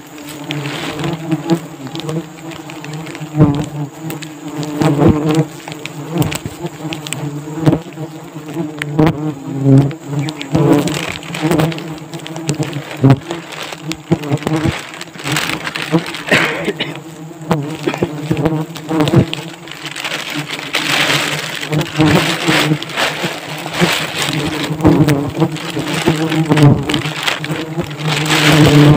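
A swarm of bees from the just-raided nest buzzing close around in a steady low drone, with the crackle and rustle of woven plastic sacks being handled.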